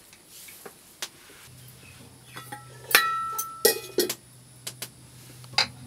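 Steel dishes and a metal ladle clinking: a cluster of sharp clinks with a short metallic ring about three seconds in, the loudest first, and one more clink near the end.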